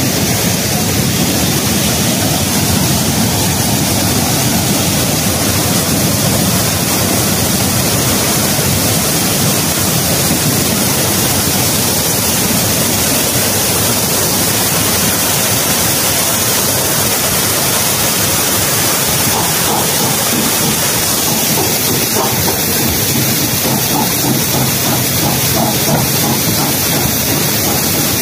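Loud, steady rush of flowing water.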